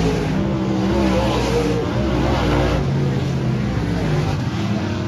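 Dirt track race cars running on the oval: several engines at racing speed, their pitch rising and falling as the cars come around the track.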